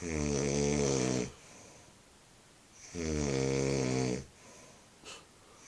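A man snoring loudly after a night of heavy drinking: two long snores, each about a second and a quarter, about three seconds apart, each a low pitched buzz with many overtones, with quiet breathing between.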